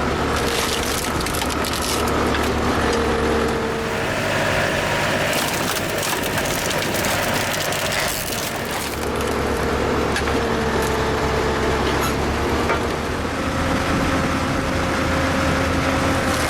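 Electric-driven 20-ton hydraulic vertical log splitter running: a steady motor and hydraulic-pump whine over a low hum, its pitch shifting slightly a few times as the ram works the log.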